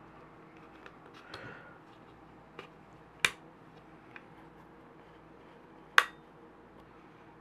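Two sharp clicks with a short ring, about three seconds in and again about six seconds in, the second louder, among a few lighter ticks over a faint steady hum.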